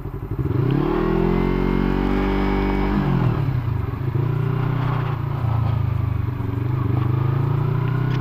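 Yamaha YZF-R25's 249 cc parallel-twin engine under way. The revs climb over the first second, drop sharply about three seconds in with an upshift, then hold steady.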